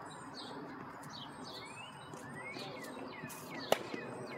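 One sharp crack of a tennis racket striking the ball about three and a half seconds in, the loudest sound here, over repeated bird chirps.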